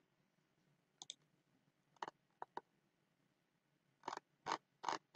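Computer mouse clicking: a quick double click about a second in, a few scattered clicks around two seconds, then three clicks near the end, with faint hiss between.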